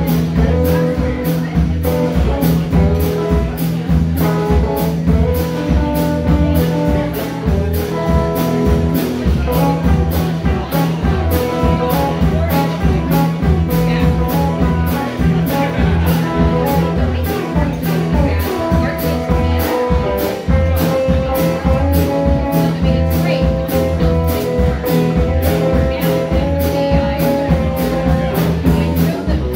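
Live band playing amplified: electric guitars over a drum kit keeping a steady beat.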